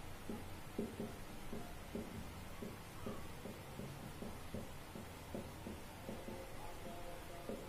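Marker writing on a whiteboard: a run of short, irregular strokes as words and symbols are written out.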